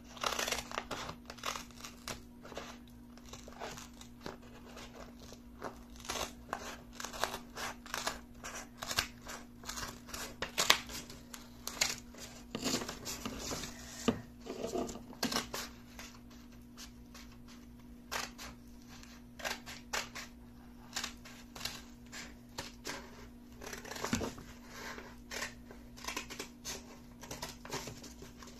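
Scissors cutting through two stacked sheets of paper: a long run of short, irregular snips.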